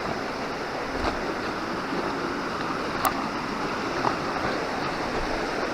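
Steady rushing of a shallow river running over rocks, with a few faint clicks.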